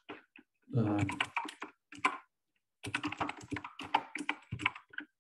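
Typing on a computer keyboard: a quick run of key clicks, thickest in the second half.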